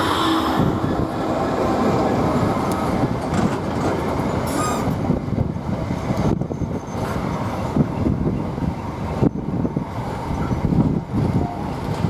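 DB Cargo UK Class 66 diesel-hauled freight train passing, a steady rumble of wagons with wheels knocking over rail joints. A brief wheel squeal comes about four and a half seconds in.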